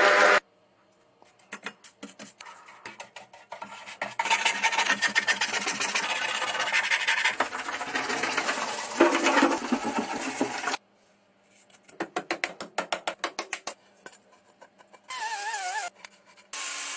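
Rapid rubbing and scraping strokes on a workpiece, in several short takes that start and stop abruptly with brief silences between them.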